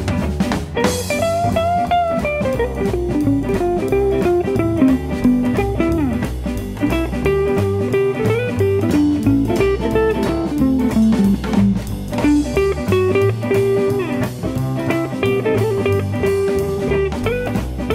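Live jump-blues band playing an instrumental break: a lead electric guitar solo, its melody winding and bending in pitch, over a drum kit keeping a steady swing beat.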